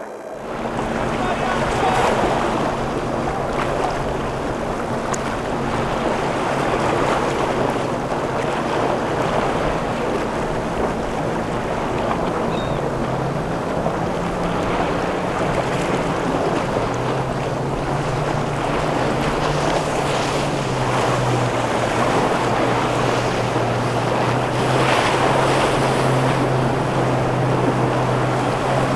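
Wind buffeting the microphone over choppy inlet water, with the low drone of boat outboard engines running underneath; the drone shifts in pitch a few times.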